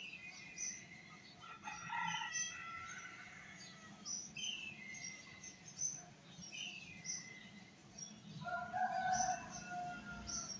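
Small birds chirping again and again, and a rooster crowing twice: once about two seconds in, and again, louder, near the end. A steady low hum runs underneath.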